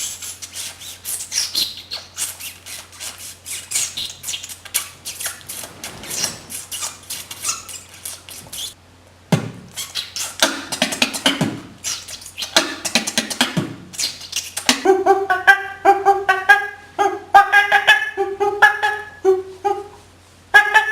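A beatboxer making sound effects with his mouth. First comes a fast run of clicks and chirps for about nine seconds. After a short pause there are some voiced sounds, and from about fifteen seconds in a string of short sung notes.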